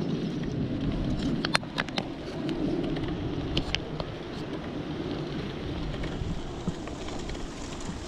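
Mountain bike riding over a rough, wet road: a steady low rumble of tyres and wind on the microphone, with a few sharp clicks and rattles from the bike about one and a half to two seconds in and again near four seconds.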